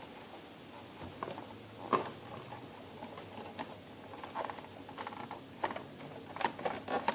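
Small clicks and light scraping of plastic as a garage door opener's circuit board is worked out of its plastic housing, catching on retaining clips.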